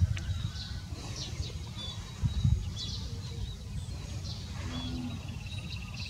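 Small birds chirping now and then over a steady low rumble, with a rapid, even trill starting about five seconds in.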